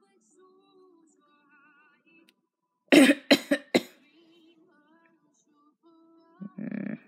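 A person coughing four times in quick succession about three seconds in, a put-on cough for a sick toy pony, then a shorter throaty cough or grunt near the end. Faint singing music plays underneath.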